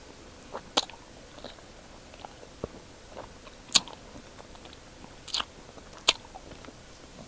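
Close-up eating sounds: a person biting and chewing a snack, with four sharp crunches about a second in, near the middle and twice near the end.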